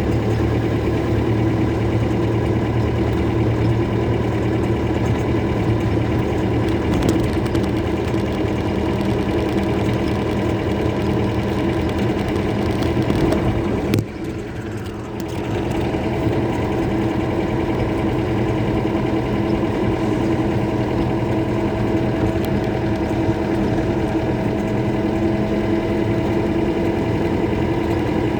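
Mercedes-Benz OM-314 four-cylinder diesel in a Toyota Bandeirante running steadily. About halfway through it suddenly gets quieter for a couple of seconds, then comes back up.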